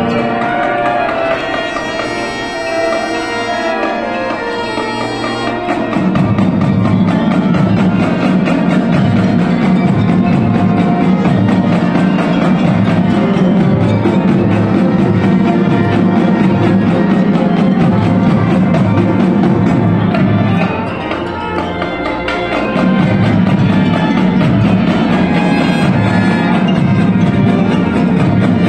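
Marching band of brass and percussion playing live. About six seconds in, the full band comes in with a strong pulsing low bass line, which drops away for a couple of seconds about three-quarters through and then returns.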